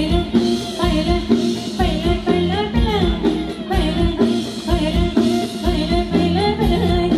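Live Thai ramwong band music with a singer: a bending vocal melody over a steady drum beat.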